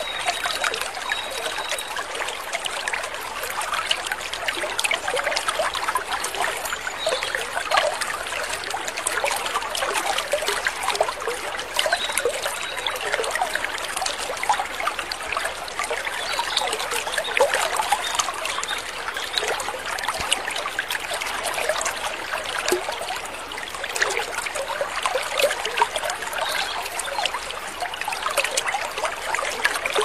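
Running water of a stream or cascade, trickling and splashing steadily.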